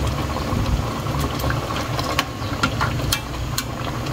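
Pot of laing (taro leaves in coconut milk) simmering: a steady low rumble under the bubbling, with a handful of short sharp clicks as a metal spatula moves in the stainless steel pot.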